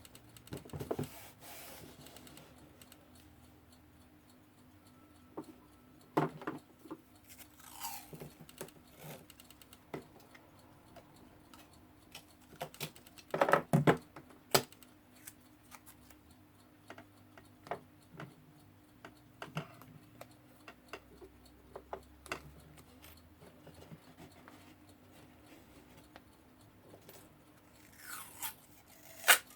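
Adhesive tape being handled and worked around a clock's glass: scattered short rips, crinkles and taps, with a louder cluster about halfway through.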